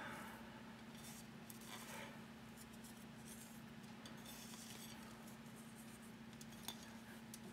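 Near silence: a steady low hum, with a few faint light ticks and rustles from fingers pinching salt off a plate and sprinkling it onto mounds of shredded cheese.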